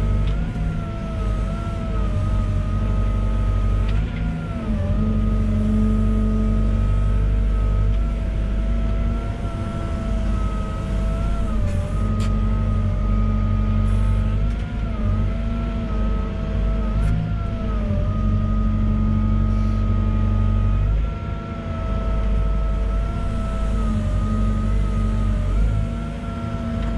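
Volvo EWR150E wheeled excavator working: its diesel engine runs steadily with a constant whine over it that dips and bends in pitch every few seconds as the machine is worked, and the loudness drops briefly a couple of times near the end.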